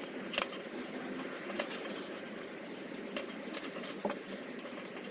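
Small scattered clicks and scratchy taps, about eight or nine of them, from a screwdriver bit and a soldering iron's plastic handle being handled as the iron is put back together, over a steady background hiss.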